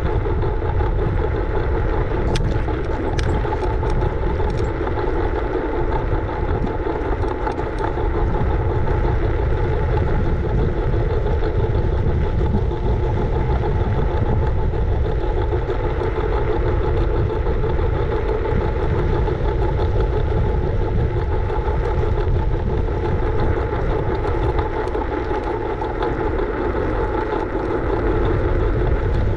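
Riding a scooter with a GoPro: steady wind rumble on the microphone and rolling noise, with a steady whine held at one pitch. A few sharp clicks or rattles come about two to five seconds in.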